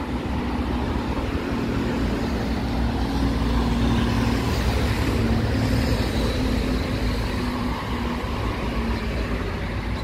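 Road traffic on a busy street, with a large vehicle's engine running close by: a steady low hum that grows louder over the first few seconds and then eases off.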